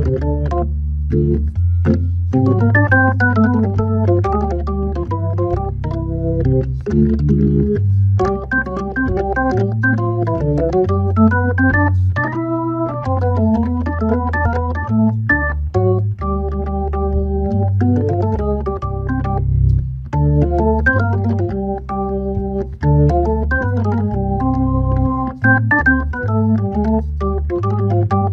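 Hammond B3 tonewheel organ playing a solo jazz waltz. Low bass notes move under chords and fast melodic runs, with a sharp click at the start of many notes.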